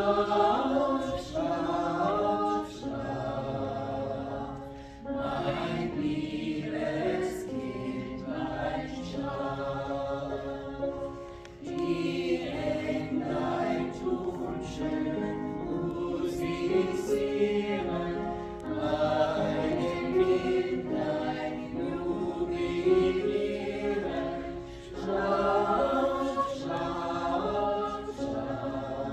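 A church choir singing a German Christmas song in phrases, with brief breaks between the phrases.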